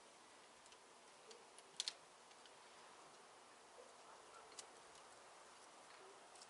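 Near silence broken by a few faint, sharp clicks, with a quick double click about two seconds in.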